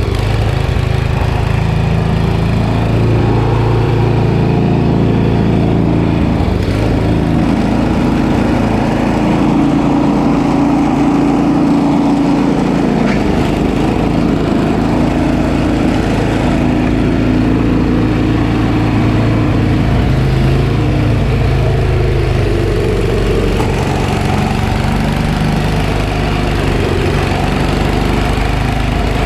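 Snowblower engine running steadily, its note shifting a few times as it goes.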